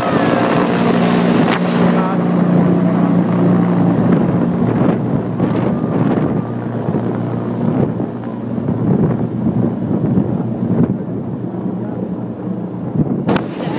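AgustaWestland A129 Mangusta attack helicopter taking off and climbing away overhead, its four-blade main rotor and turbines running loud, the sound easing somewhat about halfway through as it gains distance.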